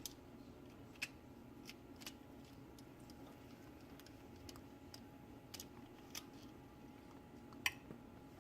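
Faint, scattered clicks and taps of a serving utensil against the baking dish and plate as a piece of baked apple dump cake is served, over a low steady hum; the sharpest click comes near the end.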